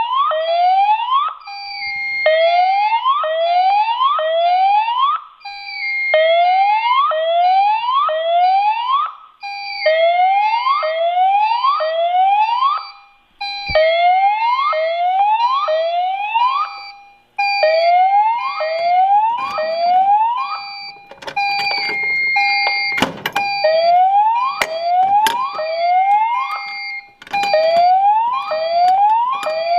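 Fire alarm sounder on a CO2 release alarm circuit, triggered by the release pull station and playing a police-style siren signal. Each cycle is a short steady tone followed by several quick rising whoops and a brief pause, repeating about every four seconds. A few sharp clicks come in over it in the second half.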